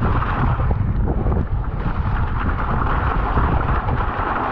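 Wind buffeting the action camera's microphone as a mountain bike rolls fast down a flooded gravel trail, its tyres hissing and splashing through running water.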